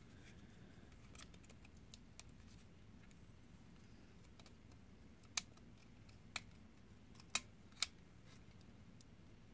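A metal pry tool clicking against the plastic housing and circuit board of a Palm IIIxe PDA as the board is levered at its clips: light scattered ticks, then four sharp clicks from about halfway through, the last two close together.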